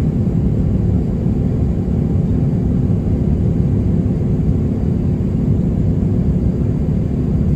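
Cabin noise inside an Airbus A350-900 in its climb after takeoff: a steady, loud low roar of the Rolls-Royce Trent XWB engines and airflow, with a faint steady hum of tones over it.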